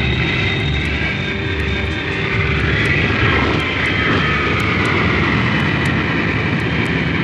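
Jet airliner engines running steadily as the plane comes in low over the runway on a night landing approach, an even noise with a faint high whine.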